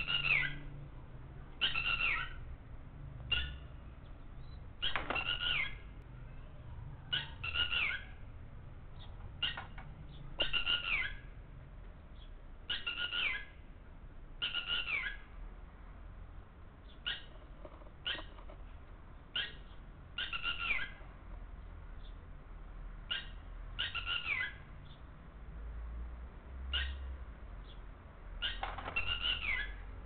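Red-wattled lapwing calling over and over: loud, sharp calls that fall slightly in pitch, some in quick pairs, coming every second or two.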